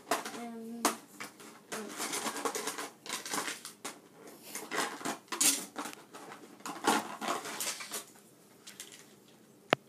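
Hard plastic toy track pieces clattering and rustling as they are handled and fitted together, with irregular clicks throughout and one sharp snap near the end.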